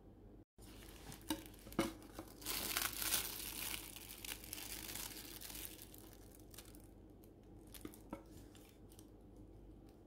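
Thin plastic film over natto in a foam tray crinkling as it is peeled back. A couple of light ticks come first, the rustle is loudest from about two and a half to five seconds in, and a few faint ticks follow.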